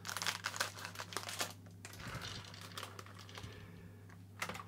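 Plastic food packet crinkling and crackling as it is handled and snipped open with kitchen scissors, dense clicks over the first second and a half; then a softer rustle as the pine nuts are tipped from the packet into the plastic food processor bowl.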